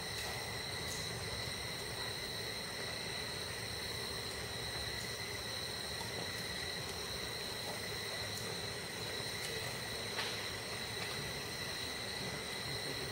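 Forest insects droning: a steady high-pitched tone over low background noise, with a faint click about ten seconds in.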